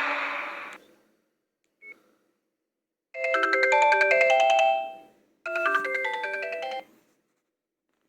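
Sony Ericsson F305 mobile phone playing a synthesized ringtone through its built-in stereo speakers: two short melodic phrases of stepped notes, each lasting about one and a half to two seconds, a little after the previous sound fades out in the first second.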